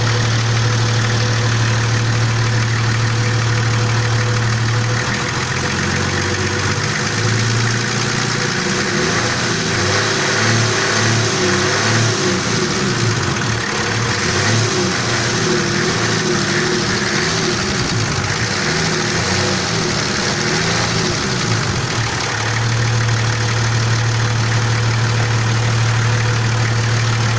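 Nissan TD42 inline-six diesel engine idling, then revved up and down repeatedly from about five seconds in, settling back to a steady idle near the end. It has a knock that comes only when the engine is hot, and the owner cannot identify its cause.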